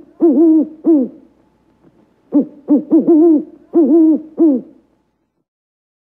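Barred owl hooting: a couple of hoots, then after a pause of about a second a longer rhythmic run of hoots, many of them ending in a downward slur.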